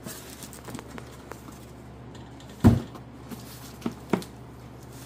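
Handling noise during unboxing: a single loud thump a little past the middle, then two sharper clicks about a second later, over a steady low hum.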